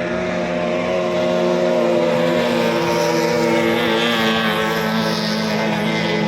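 An 18 hp outboard motor on a racing boat running at high revs. It is a steady engine tone that grows a little louder about a second and a half in.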